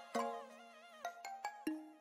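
Background instrumental music: a slow melody of separate notes, each struck sharply and then fading, some bending and wavering in pitch.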